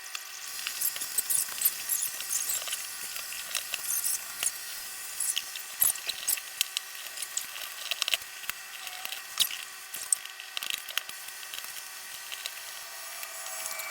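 Irregular scraping and scratching with sharp clicks from hand work on the wall paneling around the socket opening, over a faint steady hum.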